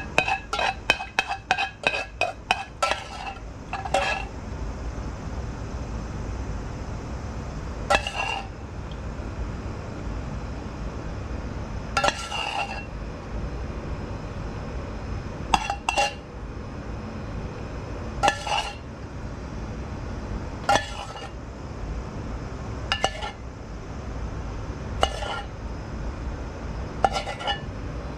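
A metal spoon clinking against the side of a metal pan as garlic oil is scooped out and drizzled. There is a quick run of about ten ringing taps in the first few seconds, then one clink every two to three seconds.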